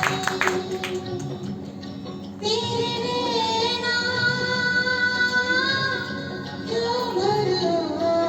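A high female voice singing a slow melody in long, held and gliding notes, starting about two and a half seconds in after a quieter stretch. A few hand claps sound at the very start.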